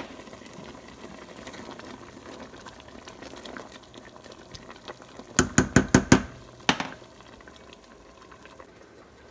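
Pot of vegetable soup boiling on the stove with a steady hiss while it is stirred. About halfway through comes a quick run of five sharp knocks, then one more a moment later.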